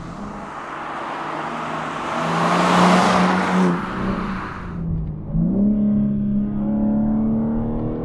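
BMW G80 M3's twin-turbo 3.0-litre inline-six: the car approaches and passes, with engine and tyre noise swelling to a peak about three seconds in and then fading. Then, heard from inside the cabin, the engine note rises in pitch a little after five seconds and holds a steady, even tone.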